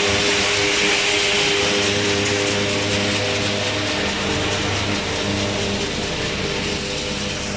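New stationary threshing machine running steadily under load: a constant mechanical hum with several steady tones, under a strong hiss of chaff and grain being thrown through the machine. The hiss is loudest early on and eases a little later.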